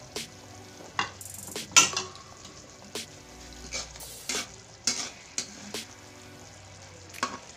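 A metal utensil scraping and stirring in an aluminium wok, roughly one stroke a second, the loudest near two seconds in, over the steady sizzle of meatloaf slices frying in sauce.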